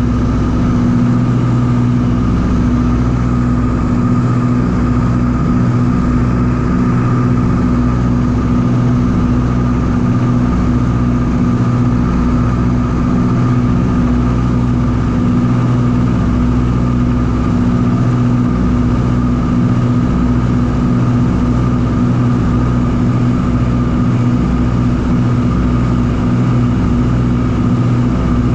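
Ford Tri-Motor's radial piston engines and propellers droning steadily in cruise flight, heard from inside the cabin.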